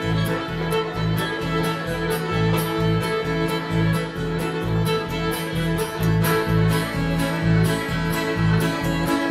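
Bluegrass string band playing an instrumental fiddle tune: two fiddles carrying the melody over upright bass, guitar and mandolin, with a steady, even beat.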